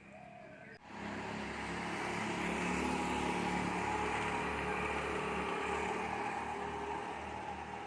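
Motor vehicle engine running close by with road noise, starting abruptly about a second in, building for a couple of seconds and then holding steady. Birds chirp faintly just before it starts.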